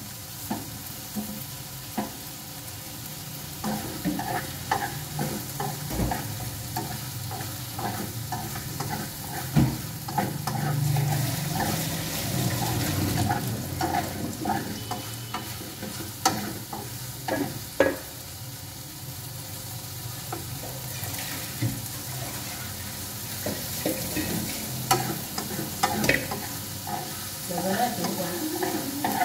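Beef and onions sizzling in a frying pan while being stirred with chopsticks, with scattered clicks and taps of the chopsticks against the pan.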